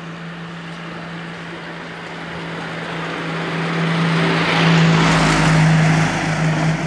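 A car driving past along the road: its engine and tyre noise grow louder, peak about five seconds in, then begin to fade.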